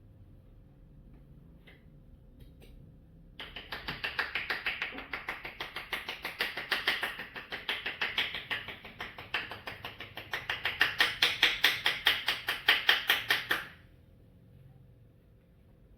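Rapid percussive massage strikes, about five or six sharp taps a second, keeping an even rhythm for some ten seconds. They start about three and a half seconds in, get louder toward the end and stop abruptly.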